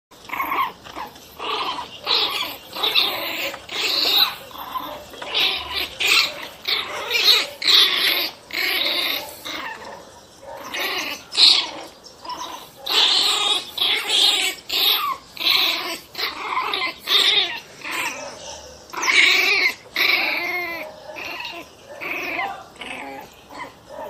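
A dog whining and crying in short, repeated cries, about two a second.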